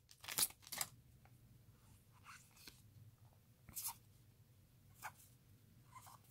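Trading cards being handled and flipped through by hand: a few soft, separate rustles and flicks of card stock, with two louder ones in the first second and fainter ones spread through the rest.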